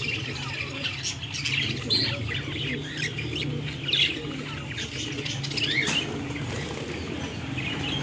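A flock of caged budgerigars chirping and chattering, many short high calls overlapping, over a steady low hum.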